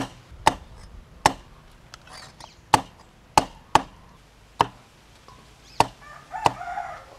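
Cleaver chopping vegetables on a thick round wooden chopping board: about nine sharp, irregularly spaced chops.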